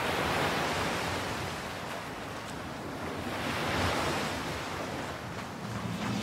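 Sea waves washing in, a rushing surge that swells twice. Low sustained music notes come in near the end.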